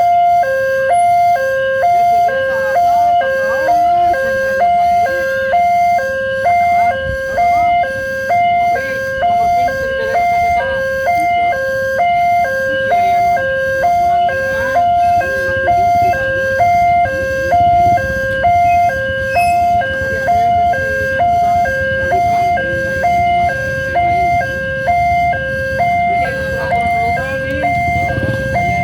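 Railway level-crossing warning siren, an electronic two-tone alarm alternating steadily between a higher and a lower pitch about once a second. A low rumble builds underneath in the second half.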